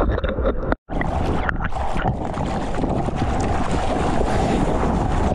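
Seawater splashing and rushing over a GoPro action camera's microphone while it rides on a surfboard in the surf, mixed with wind noise. The sound cuts out for a moment just under a second in, then settles into a steady rushing hiss.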